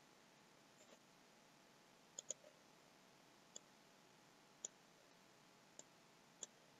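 Faint, scattered clicks of a computer mouse, about eight in all at irregular intervals, including a quick double click a little past two seconds in.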